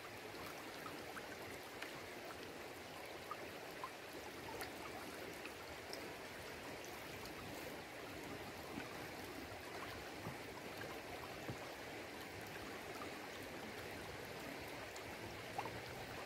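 Steady rushing of a flowing river, with a few faint small ticks now and then.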